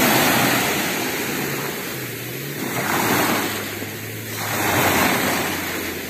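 Small sea waves breaking and washing in the shallows, the surf swelling and ebbing every couple of seconds.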